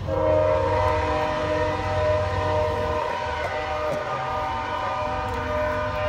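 Background music of steady, held chords that come in abruptly, with a low hum beneath.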